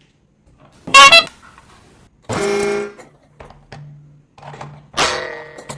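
A string of short pitched sound effects: a sharp brief tone about a second in, a steady horn-like honk lasting under a second a little after two seconds, and a falling tone near the end.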